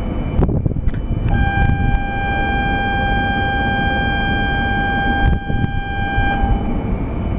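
A steady high-pitched signal tone sounds for about five seconds, starting about a second in, over the low steady rumble of a 200 series Shinkansen waiting at the platform to depart.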